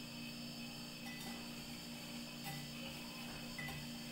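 A few faint clinks, about a second apart, of metal utensils against ceramic as a wire whisk and a spoon work a dalgona coffee mixture in a bowl and mug, over a steady low hum.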